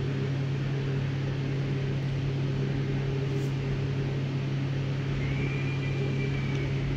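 Electric actuator motors of a MET LIFT UP medical bed running with a steady hum as the side section tilts for lateral turning. A faint high whine joins for about a second near the end.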